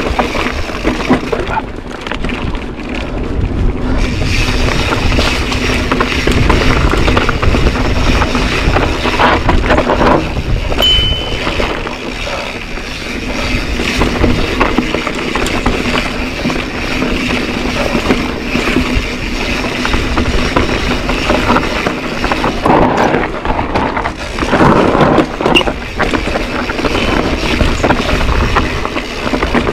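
Mountain bike riding down a dirt singletrack: tyres rolling over dirt and the bike rattling over bumps, with wind buffeting the handlebar camera's microphone. The noise rises and falls with the terrain.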